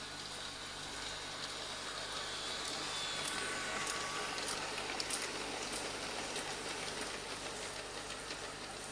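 G-scale model train, a Piko BR 204 diesel locomotive hauling ore hopper wagons, rolling on its track. Its wheels make a steady rolling noise with scattered light clicks, growing louder partway through as the train passes close by.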